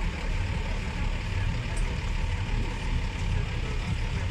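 Heavy truck's diesel engine idling steadily, a low, even rumble with a slight pulse.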